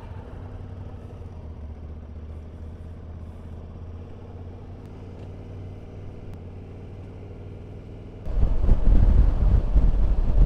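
Motorcycle engine running steadily at low revs, heard from the bike itself. About eight seconds in the sound cuts abruptly to loud wind buffeting the microphone at road speed.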